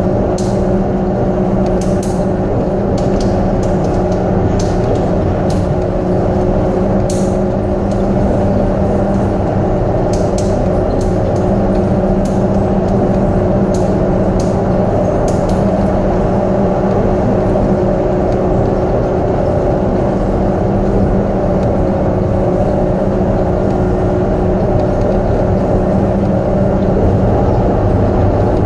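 Airport transfer train running at speed through a tunnel, heard from inside the car: a steady running noise with a low hum. Sharp ticks come irregularly through the first half.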